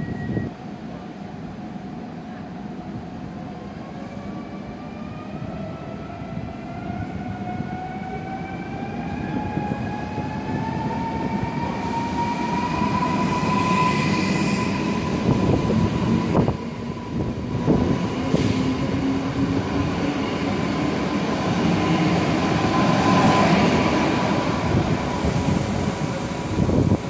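An electric multiple unit running along the platform. Its traction motors give a whine that climbs slowly in pitch and then holds steady, over a growing rumble of wheels on the rails, with a sharp click about two-thirds of the way through.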